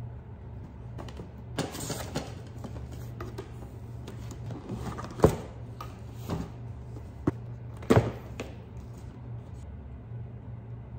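Cardboard boxes and packaged meal-kit boxes being handled and set down on a counter: soft cardboard rustling with several sharp knocks, the loudest about halfway through and two more soon after. Quiet background music runs underneath.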